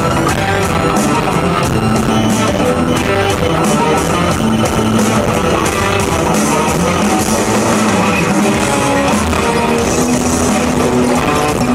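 Progressive rock band playing live: electric guitar, bass guitar, keyboards and a drum kit keeping a steady beat, loud and continuous.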